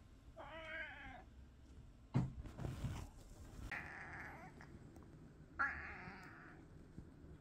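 Brown tabby cat meowing three times, the short call the owner calls 'jami-jami': a clear meow that bends in pitch near the start, then two harsher, raspier calls about four and six seconds in. A single thump about two seconds in.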